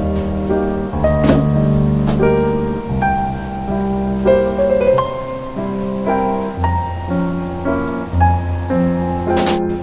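Background music led by piano, a melody of short notes over held bass notes.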